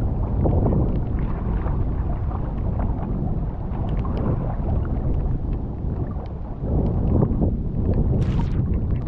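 Strong wind buffeting the microphone over choppy water around a small boat, a steady rumbling rush with scattered light ticks. A brief hiss rises near the end.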